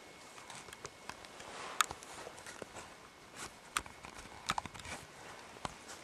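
Footsteps on the forest floor: irregular light snaps and clicks of twigs and ground litter over a faint hiss, with sharper snaps about two, four and four and a half seconds in.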